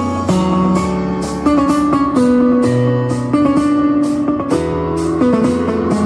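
Guitar music played through a pair of JBL Flip 5 portable Bluetooth speakers linked by PartyBoost, a run of plucked notes changing about every half second.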